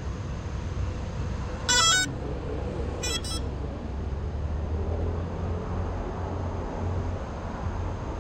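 Steady low rumble of road traffic, with a short, loud, buzzy beep about two seconds in and a fainter, pulsing beep about a second later.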